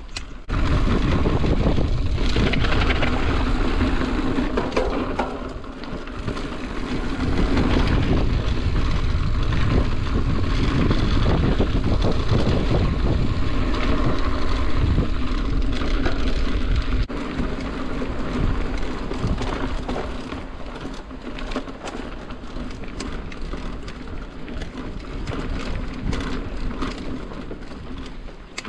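Cross-country mountain bike ridden over a dirt singletrack covered in dry leaves: tyres crunching and rumbling on the dirt and leaf litter, with the bike rattling and knocking over bumps. Loudest for the first half, quieter after about seventeen seconds.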